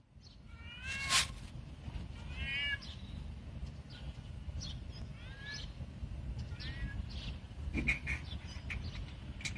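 Tomcat's mating calls: four short meows with a rising lilt, a second or more apart, over a low steady rumble. A sharp click about a second in is the loudest sound.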